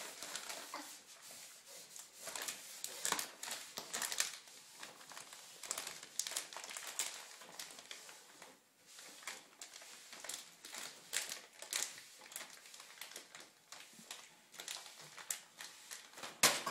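Plastic cheese packaging crinkling and crackling in irregular bursts as a small child handles and pulls at it.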